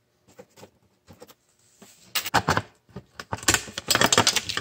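Screwdriver prying at the metal battery-coil contacts in a scale's battery compartment: a few faint ticks at first, then quick irregular clicking and scraping from about two seconds in, busiest near the end.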